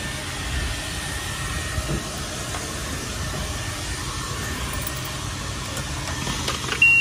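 Self-serve car wash high-pressure pump and wand running: a steady hiss over a low hum. A short electronic beep comes near the end, as a hand works the bay's coin-and-selector box.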